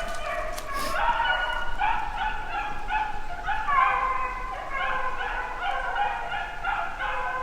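A pack of beagles baying on a rabbit's trail, several dogs' voices overlapping in a continuous chorus, the sign that the dogs have the scent and are running the rabbit.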